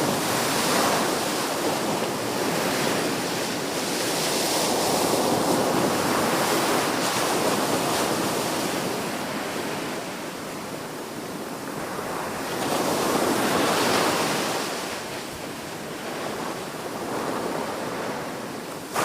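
Sea waves washing onto the shore, a continuous surf noise that swells and eases every few seconds, with wind buffeting the microphone.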